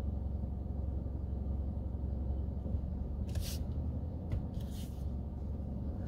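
Steady low rumble of a car's engine and tyres heard from inside the cabin while driving. Two short hissing sounds come near the middle.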